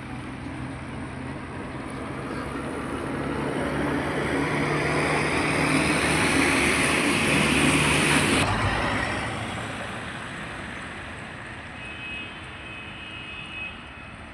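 A motor vehicle's engine and tyre noise on the road, growing louder over several seconds, then cutting off abruptly about halfway through. Fainter road traffic noise follows.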